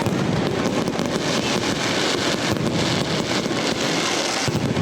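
Fireworks display going off in a dense, continuous volley of crackles and pops, with no break between them.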